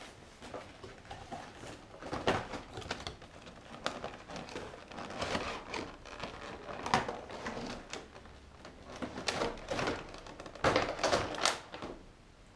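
A cardboard box and its inner packaging tray being opened and handled: irregular rustling and scraping with sharp knocks, the loudest bursts about two, seven and eleven seconds in.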